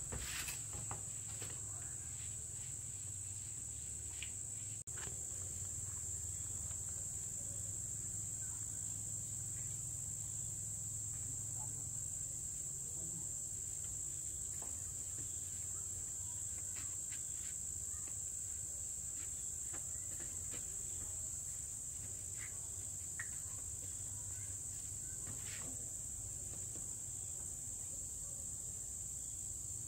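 Insects trilling in a steady, unbroken high-pitched chorus, with a low steady hum beneath.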